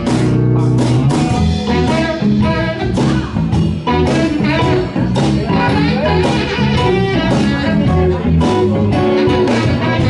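Live band playing a blues-style number, with guitar prominent over a steady beat.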